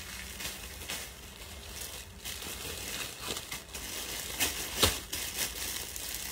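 Clothing fabric rustling and crumpling as a top and trousers are pulled off and handled, with a sharper thump about five seconds in.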